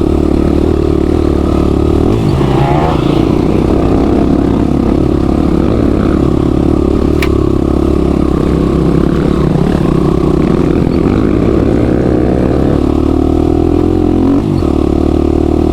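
Trail motorcycle engine running steadily under way, its pitch holding level with a small change near the end. A single sharp tick comes about seven seconds in.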